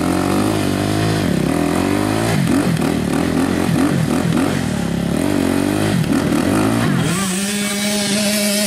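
Dirt bike engine revved in repeated rising and falling bursts as the rider tries to drive the bike out of deep mud, the rear wheel spinning in the mire. Near the end the engine holds a steady, higher pitch.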